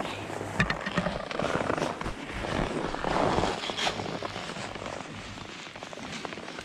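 Skis sliding and scraping over hard-packed snow, with wind rumbling on the microphone and a few sharp clicks in the first second or so.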